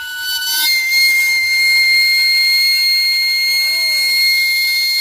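Steam whistle of a camotero's cart: steam from the cart's boiling-water tank blowing through the whistle, giving a loud, steady, shrill whistle over a hiss. It steps up in pitch once, under a second in, then holds.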